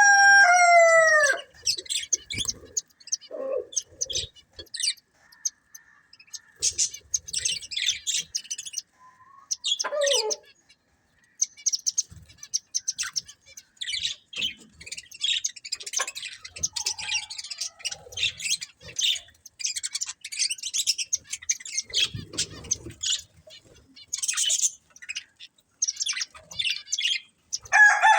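Budgerigars chirping and twittering in rapid, irregular short calls. A rooster's crow trails off in the first second or so.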